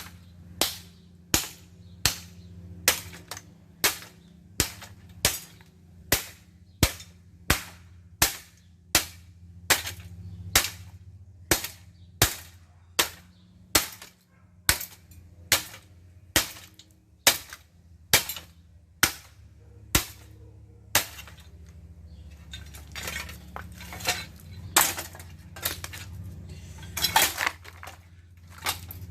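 A running ceiling fan being wrecked: sharp knocks at a steady pace of about one and a half a second over a low motor hum, turning about two-thirds of the way through into faster, irregular clattering and clinking, as of parts breaking.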